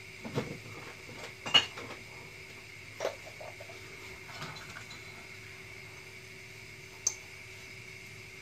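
Kitchen clatter from handling utensils and containers: a few sharp clicks and knocks, the loudest about a second and a half in and a last one near the end, over a steady faint hum.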